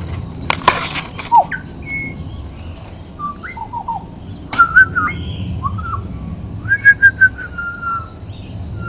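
Pied butcherbird singing clear, fluting whistled notes. It gives short phrases, a falling slide, a quick three-note trill and longer held whistles near the end, which are the loudest.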